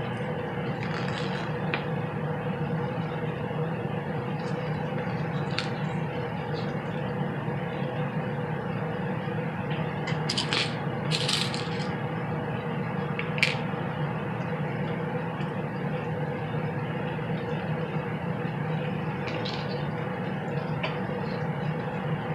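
A metal zipper and pins being handled against fabric: a few light clicks and rattles, bunched about halfway through, over a steady low hum.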